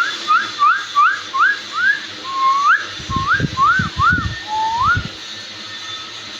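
Whistling: a run of short, rising whistled notes, about three a second, slowing to a few longer up-sweeps. A handful of low thumps sound midway.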